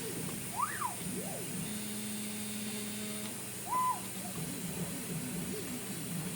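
Stepper motors of a CNC plasma table gantry whining in quick pitch sweeps, each rising and falling with a short move, with one held pitch a little before the middle, over a low steady hum.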